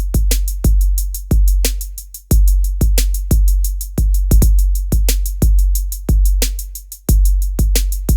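Electronic drum-machine beat: deep booming bass kicks, each ringing on, about twice a second over a fast run of hi-hat ticks. A couple of the bass notes are held longer and fade out before the pattern picks up again.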